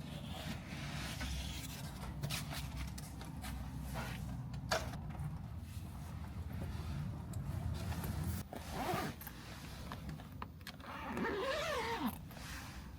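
Steady low rumble of heavy rain and wind heard from inside a small van, with scattered clicks and scraping handling sounds; the longest scrape, zip-like, comes near the end.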